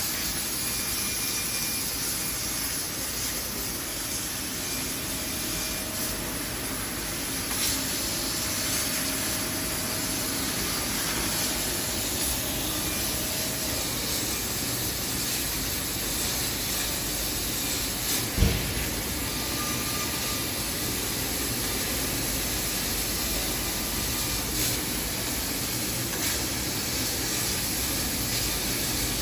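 Laser cutting machine cutting titanium sheet: a steady hiss from the cutting head as the assist gas blows through the cut, with one sharp knock about 18 seconds in.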